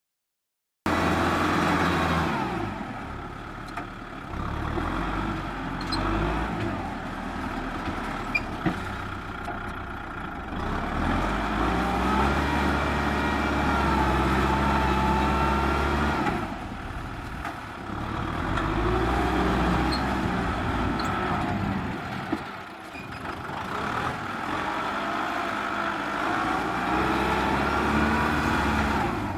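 Kubota M6040SU tractor's diesel engine running under load while pushing soil, its level swelling and dropping back several times, with a high whine that rises and falls along with it. The sound starts abruptly about a second in.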